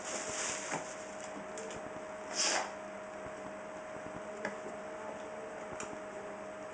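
Handling noise from unboxing a camera: one brief rustle about two and a half seconds in and a few small clicks, over a steady hiss and a faint steady hum.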